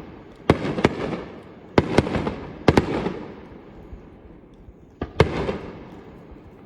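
Aerial fireworks shells bursting: sharp bangs, each trailing off in a rumbling echo. Four come in the first three seconds, then a pause, then two more close together about five seconds in.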